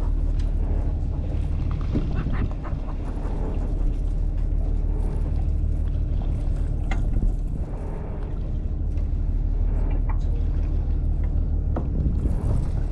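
Boat engine running steadily, with a few short clicks and knocks over it.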